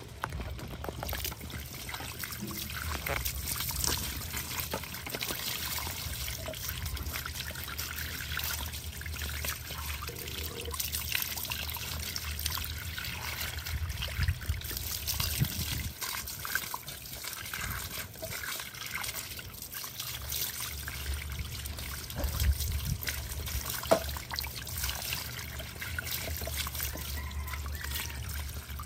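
Water from a garden hose trickling and splashing as it runs over two baby monkeys in a wire basket and onto wet paving.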